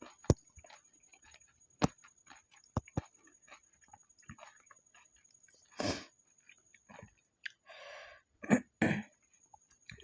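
Close-miked eating of pani puri: the crisp puri shells crunch with sharp cracks in the first three seconds, then chewing, with a louder noisy burst about six seconds in and two more near the end.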